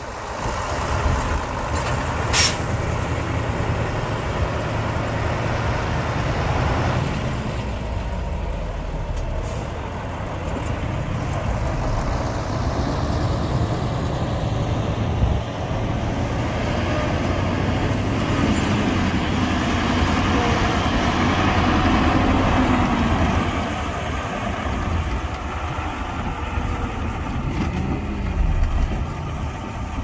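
Heavy diesel earthmoving machinery running steadily, with the engine note rising and falling under load several times, and a brief sharp sound about two seconds in.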